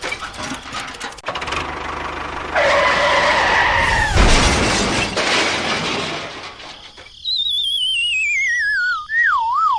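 Cartoon-style sound effects: a squealing tone, then a crash about four seconds in, then a whistle that slides downward in pitch with a wobble, like a falling slide whistle, over the last few seconds.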